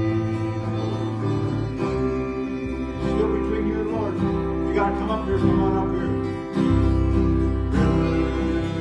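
Worship music: sustained chords with acoustic guitar, a steady bass line and some singing.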